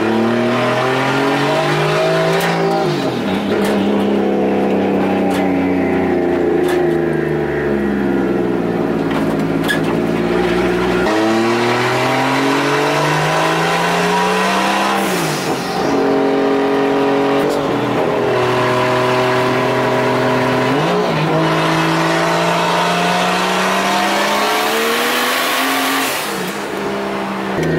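Turbocharged 2JZ-GTE inline-six in a Nissan 240SX S14 accelerating hard through the gears. Its pitch climbs under load and falls sharply at each gear change, several times.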